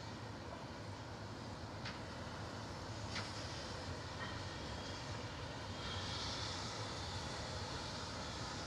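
Standing steam tank locomotive with steam hissing steadily, the hiss growing stronger about six seconds in. Two short sharp clicks early on.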